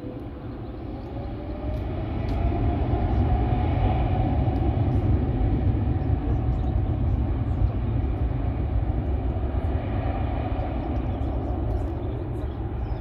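Boeing 777 freighter's twin turbofan engines spooling up to takeoff thrust on the takeoff roll. A deep rumble swells about two seconds in and then holds steady, with a whine rising in pitch during the first few seconds.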